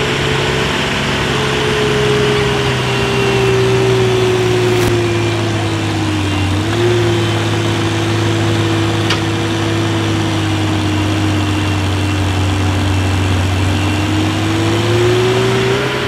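Ford 9600 tractor's turbocharged six-cylinder diesel running hard under full load while pulling a weight-transfer sled. Its pitch sags slightly about six seconds in, holds steady, then rises again near the end.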